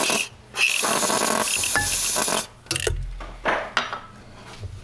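Aerosol spray cleaner hissing out through its straw: a burst that stops just after the start, then a second burst of about two seconds. After that comes quieter rubbing of a cloth rag.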